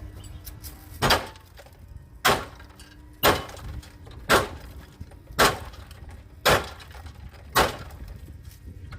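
Seven sharp knocks, evenly spaced about a second apart, each with a short ringing tail.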